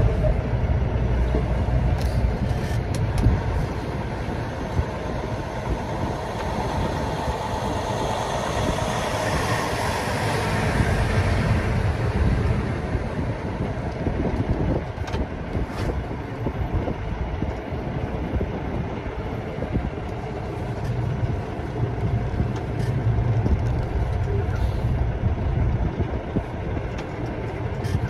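Semi truck on the move, heard from inside the cab through an open side window: a steady low engine and road rumble with a rush of wind and road noise. A louder rush swells and fades about ten seconds in.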